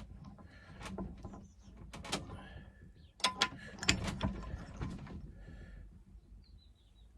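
Clicks and knocks of small cigar pen kit parts and a 3D-printed pen press being handled and fitted on a lathe, the sharpest cluster a little over three seconds in.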